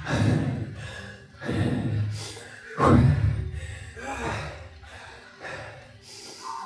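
A man breathing hard in heavy, gasping breaths, recovering after an all-out sprint interval on an exercise bike. About five breaths come roughly a second and a half apart, the loudest about three seconds in, growing weaker toward the end.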